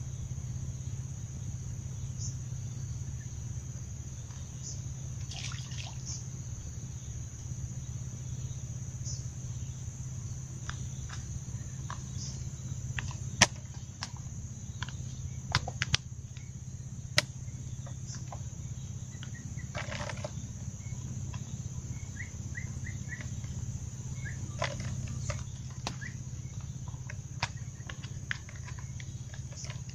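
Steady high-pitched insect drone from the surrounding vegetation, over a low steady hum, with scattered sharp clicks and knocks from fishing tackle being handled.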